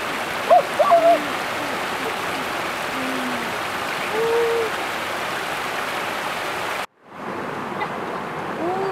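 Stream water rushing steadily over rocks at a small cascade, with a few brief voice-like sounds. The sound cuts out for a moment about seven seconds in, then the running water resumes, a little quieter.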